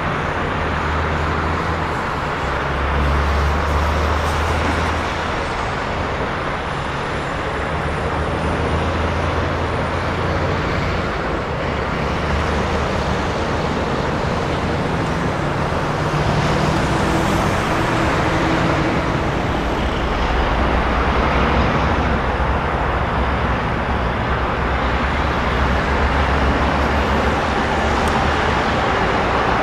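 Steady road traffic noise, with the low rumble of passing vehicles' engines swelling and easing.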